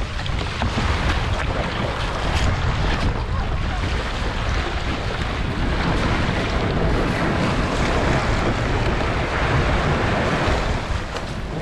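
Wind buffeting the microphone in a steady rumble over the wash of sea waves.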